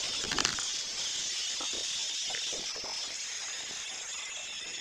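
Steady hiss with faint scrapes and knocks as a large floor tile is shifted by hand and lifted off its mortar bed, with one louder knock or scrape at the start.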